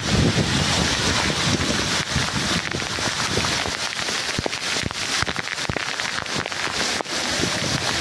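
Steady rush of falling water from a waterfall, with wind buffeting the microphone for the first few seconds and a few faint clicks later on.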